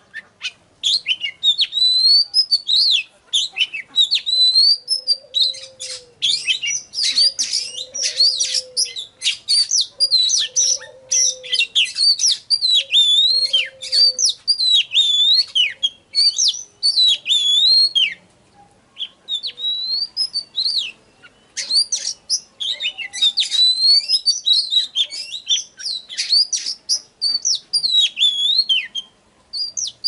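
Oriental magpie-robin singing: a fast, varied stream of high whistled phrases mixed with harsh scratchy notes, with a short break a little past halfway.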